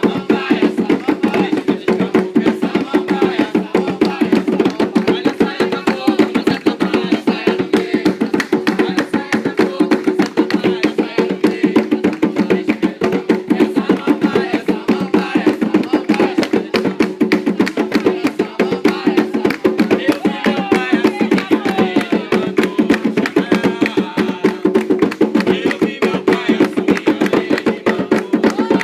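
Umbanda ritual music: a fast, steady hand-drum rhythm, with voices singing faintly at times.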